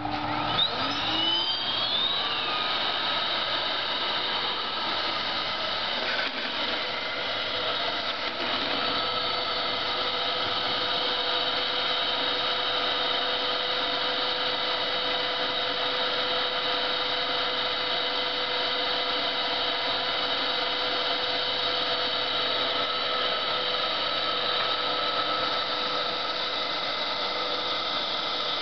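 Vacuum-cleaner motor starting up, its whine sweeping up in pitch for a second or two and then running steadily with a loud rushing hiss.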